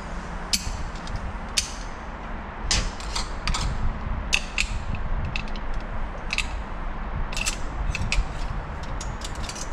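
Irregular sharp metallic clicks and scrapes as a snap ring is worked out of its groove inside a 62TE transmission case by hand, over a steady low rumble.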